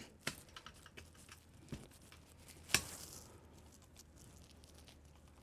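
A few faint clicks and scrapes of a plastic remote-control case being pried apart at its snap clips, with one sharper click a little under three seconds in.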